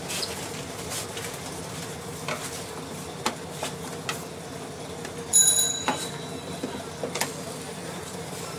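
Scattered clicks and knocks of hands and a screwdriver working on the plastic back cabinet of a CRT television, being opened for repair. About five seconds in comes the loudest sound, a sharp strike that rings high for about half a second.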